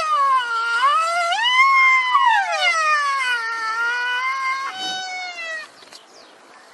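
Rhinoceros giving one long, high, whining squeal that wavers down and up in pitch, lasting about five and a half seconds.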